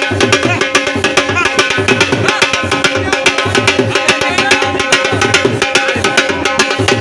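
Punjabi dhol, a two-headed barrel drum, played in a fast bhangra rhythm: quick sharp strokes over a regular deep thump. A steady droning tone is held underneath throughout.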